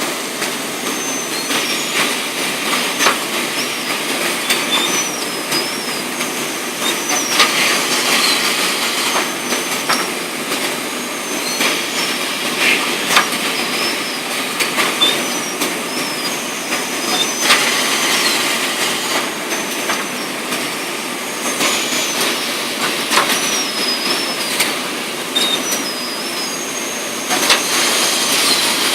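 Cat litter bagging machine running: a steady mechanical din with a burst of hissing about every four to five seconds and short, high squeaking tones in between.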